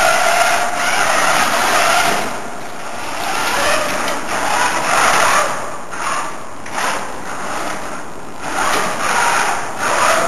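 Competition robot's electric drive motors and gearboxes whining as it drives across a concrete floor: a steady whine for the first couple of seconds, then surging up and down in swells as it speeds up, slows and turns.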